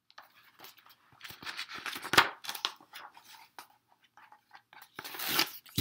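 Pages of a hardcover picture book being turned by hand: paper rustling and crackling in two bursts, the first about a second in with a sharp crackle, the second near the end.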